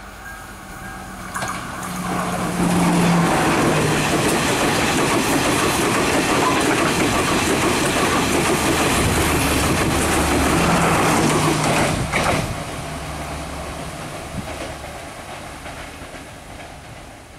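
Sri Lanka Railways Class S14 diesel multiple unit passing close by: diesel engine running and wheels clattering over rail joints. It builds about two seconds in, stays loud for about ten seconds, gives one sharp clack near the end of the loud part, then fades as the train moves off.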